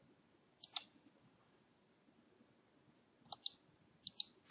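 Computer mouse button clicking a few times, faint and sharp, the clicks coming in close pairs about a second in and again near the end, as points are picked for lines in a CAD drawing.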